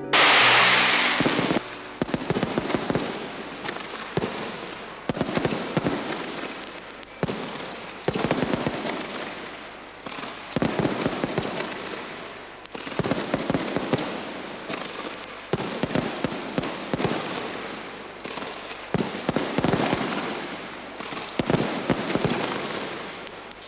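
Fireworks going off: a loud burst at the very start, then bang after bang every second or two, each followed by fading crackle.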